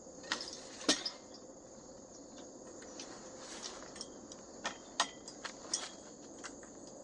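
Scattered sharp clicks and knocks from a pop-up canopy's frame being handled and unfolded. The loudest come about a second in and about five seconds in, over a steady high chirring of crickets.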